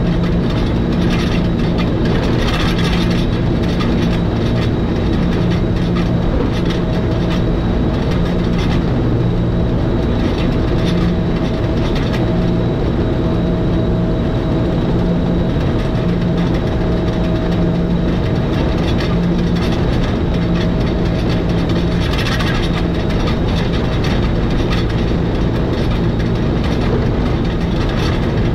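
Electric rack-railway train of the Schynige Platte Railway running steadily downhill on its Riggenbach rack, heard from the driver's cab. It makes a continuous rumble, with a low drone that swells and fades every second or two.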